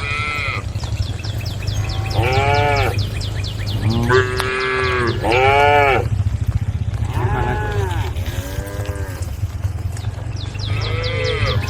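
Cattle mooing: a string of short calls, each under a second, one after another, over a steady low hum.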